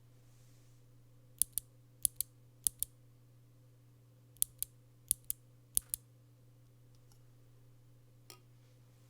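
Keys on a mechanical keyboard with retooled Cherry MX Brown tactile switches and GMK keycaps pressed one at a time, six keystrokes in two groups of three, each a sharp double click as the key goes down and comes back up. A faint click follows near the end, over a steady low hum.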